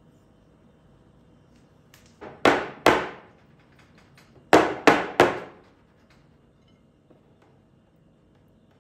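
Glass baking dish full of cake batter rapped down on a marble countertop: two loud knocks, then three more about two seconds later, each with a short ring, to settle the batter and knock out air bubbles.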